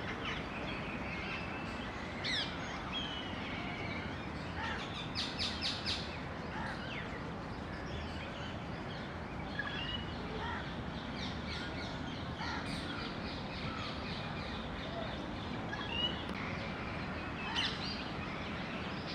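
Outdoor chorus of bird calls, crows cawing and short chirps scattered throughout, with a quick run of four sharp chirps about five seconds in, over a steady background hiss.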